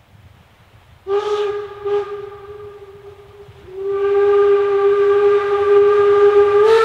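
A narrow-gauge steam locomotive's steam whistle blown twice. A first blast starts about a second in and weakens, then a longer, louder blast is held steady through the second half.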